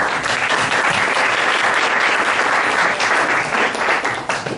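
Audience applauding: a dense, steady patter of hand claps that dies down near the end.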